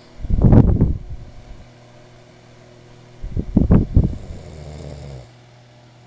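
A sleeping man snoring: two loud, rattling snores about three seconds apart, each trailing off into a quieter tail.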